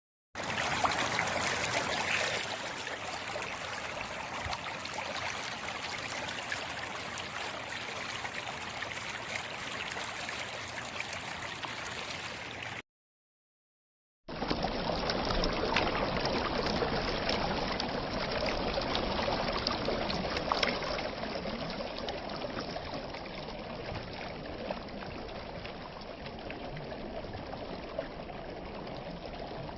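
Steady rush of running water from a stream. It cuts out completely for about a second and a half near the middle, then resumes with a duller sound.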